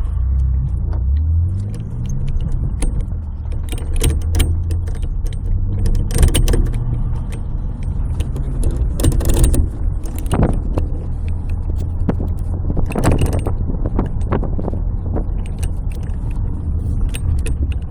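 Car running with a steady low engine hum that rises in pitch near the start, while irregular clunks and rattles knock through it, several of them sharp and loud, from a worn mount.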